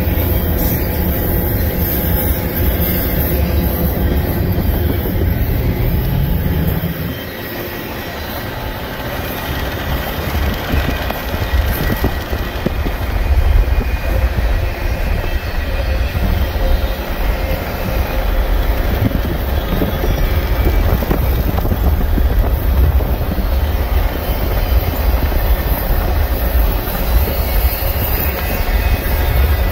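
Double-stack intermodal container freight train rolling past close by, its steel wheels running steadily on the rails with a loud low rumble. The low rumble drops away about seven seconds in and builds back over the next few seconds.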